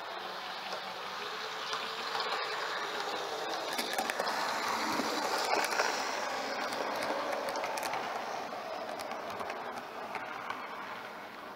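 OO gauge model train running past on the layout's track: its running sound swells to a peak about halfway through and fades as it moves away, with scattered light clicks.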